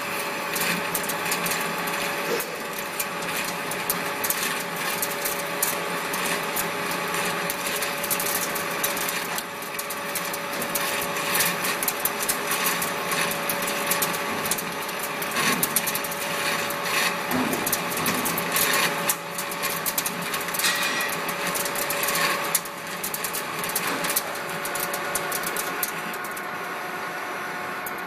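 Metal-turning lathe boring out the centre hole of a large spinning metal disc with a boring bar: a steady machine whine under a dense, irregular crackle of clicks from the cut. The crackle thins out near the end.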